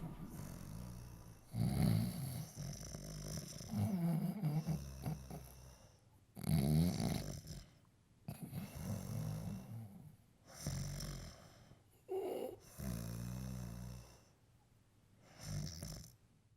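A person snoring: a run of about seven snores, one every two seconds or so, some sliding up or down in pitch.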